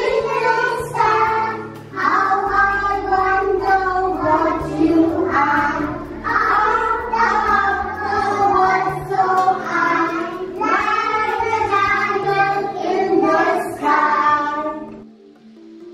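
A group of young children singing an action song together in a classroom, led by a woman. The singing stops about 15 seconds in, leaving only soft instrumental background music.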